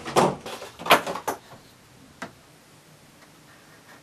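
Handling noise: several quick knocks and scrapes in the first second and a half, then one sharp click about two seconds in, as a paper model part and its thin support rod are worked into place.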